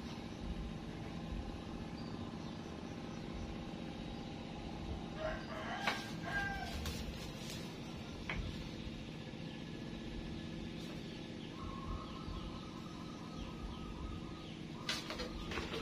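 A rooster crowing, with a long held crow in the second half, over a steady low hum. A few sharp clicks from a knife cutting vegetables by hand.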